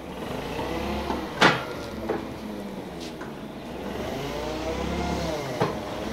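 Forklift engine running steadily and revving up and down as it drives, with a sharp metallic clank about one and a half seconds in and another near the end.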